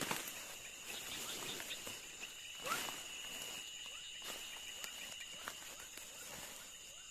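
Night insects trilling steadily in two high, unbroken tones, with a few close rustles and knocks from handling and footsteps, the loudest about two and a half seconds in.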